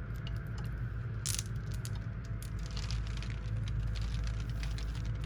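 Steady low hum of shop background with scattered light clicks and clatters of small wooden and plastic Christmas ornaments being handled. The sharpest click comes a little over a second in, and a run of them around the middle.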